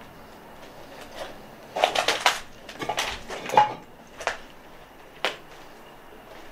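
Footsteps crunching and scraping over rubble and debris: a quick run of sharp crunches in the middle, then two single crunches.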